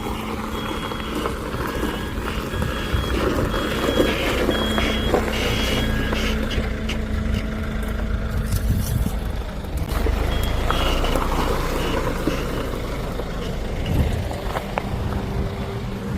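Truck engine running while a reversing alarm beeps in a steady on-off pattern. The beeping stops around six seconds in and starts again for a few seconds after the ten-second mark.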